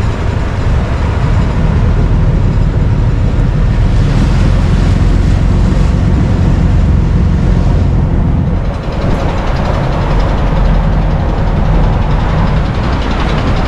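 A boat's engine running with a loud, steady low rumble as the boat comes in to the pier. The rumble dips briefly a little past halfway.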